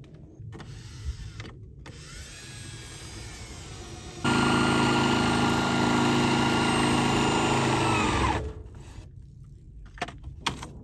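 A power tool's electric motor starts abruptly about four seconds in, runs steadily at one pitch for about four seconds, then winds down as it stops. A few light knocks follow near the end.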